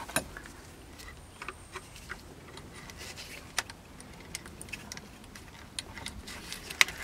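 Scattered light clicks and taps of a screwdriver and pry tool working a double clip on a truck's interior trim panel loose, with a sharper click near the end.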